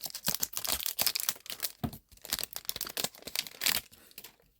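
Foil wrapper of a Japanese Pokémon booster pack being torn open and crinkled. The crackling is rapid and irregular and dies away near the end.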